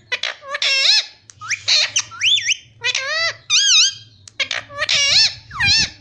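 Derbyan parakeet calling in a run of about nine short, high-pitched squawks, each swooping sharply up or down in pitch, in quick clusters.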